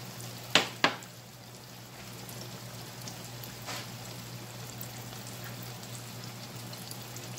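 Breaded fish fillet frying in a skillet of hot oil, a steady rain-like crackle and sizzle. Two sharp clicks about half a second in, as a small ceramic ramekin is set down on the stove.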